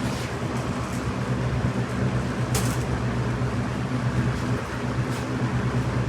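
A 1993-94 Robeson 20-inch box fan running steadily, its motor humming low under the rush of air from the blades, with two faint clicks.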